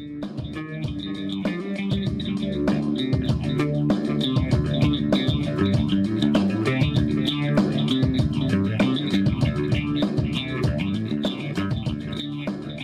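Outro music: rock-style instrumental with guitar and bass guitar, fading out near the end.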